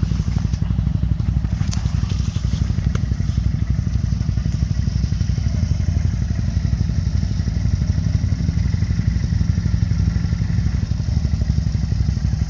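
Quad (ATV) engine running at a steady low speed, its firing pulses continuous, with a few light clicks in the first few seconds.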